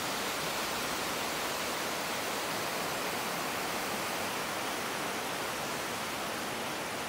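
Mountain creek cascading down over rocks: a steady, even rushing of water.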